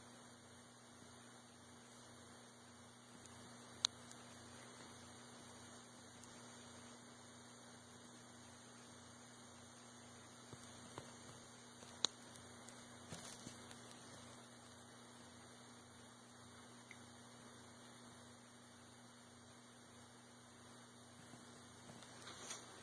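Near silence with a steady low electrical hum and faint hiss, broken by two sharp clicks, about four and twelve seconds in, and a few faint rustles of handling.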